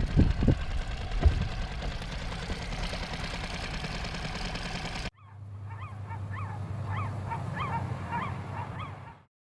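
Tohatsu 6 hp four-stroke outboard motor running steadily after its oil change, cut off abruptly about halfway through. It is followed by a low steady hum with a run of short rising calls that fades out near the end.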